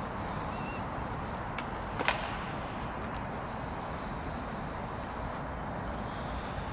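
Steady outdoor background noise with one sharp knock or click about two seconds in.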